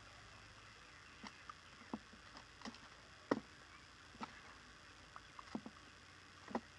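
A puppy shifting its paws on a raised place board and mouthing treats from a hand: a dozen or so soft knocks and clicks at irregular intervals, the loudest about three seconds in, over a faint steady hiss.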